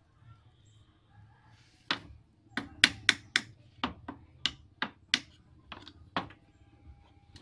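Small hammer driving nails into a thin wooden board on a wooden block: about a dozen quick, sharp strikes in uneven bursts, starting about two seconds in.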